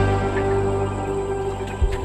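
Background music with soft, sustained ambient tones, with a short low thump near the end.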